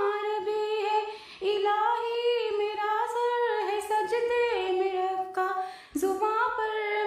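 A woman singing a naat (Urdu devotional song) without accompaniment, holding long notes that slide in pitch, with two short pauses about a second in and near six seconds.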